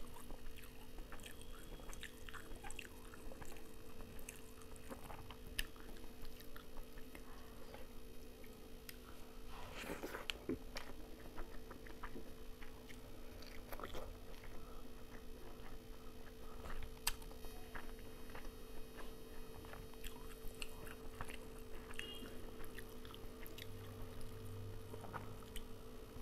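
A person eating rice and mutton curry by hand: close-up chewing with many small wet mouth clicks, over a steady low hum.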